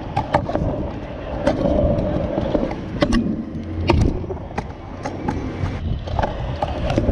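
Stunt scooter wheels rolling over hard pavement, with a steady rumble and a string of sharp clacks as the wheels and deck hit the ground.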